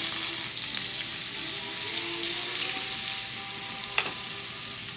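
Melted butter sizzling steadily in a frying pan on the stove, with a single sharp click of a metal utensil against the pan about four seconds in.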